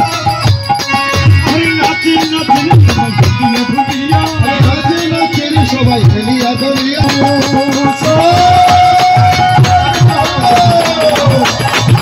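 Kirtan music: a khol drum beating a fast, steady rhythm under jingling hand cymbals. About two-thirds of the way through, a long note is held and then slides down near the end.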